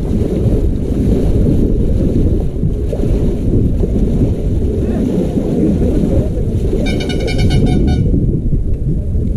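Heavy wind rumble on the microphone over water churned by the paddles of a Kerala snake boat's large rowing crew. About seven seconds in, a high trilling tone pulses for about a second.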